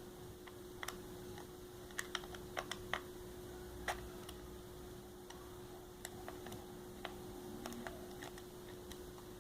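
Scattered small, sharp clicks and taps of plastic and metal from handling a computer mouse being taken apart with a small screwdriver, with a cluster of clicks about two to four seconds in. A faint steady hum runs underneath.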